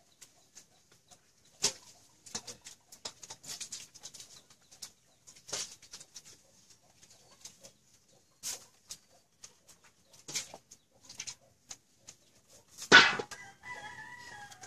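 Water splashing and dripping in short, scattered splashes as a slaughtered rabbit is dunked and rinsed in a metal basin of cold water. Near the end comes one sudden, much louder hit.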